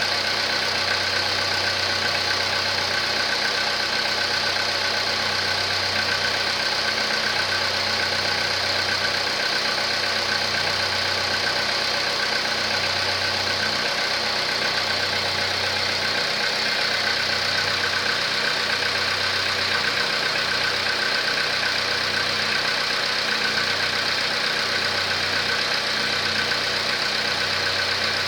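Volkswagen Polo Sedan's 1.6-litre petrol engine running steadily with no change in speed. The owner suspects piston knock despite the updated pistons already fitted.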